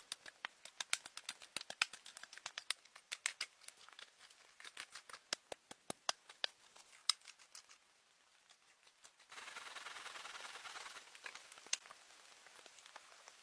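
A quick, irregular run of small sharp clicks and crackles that thins out and stops about seven seconds in. After a short lull, a steady hiss starts and fades after about two seconds, with a few scattered clicks.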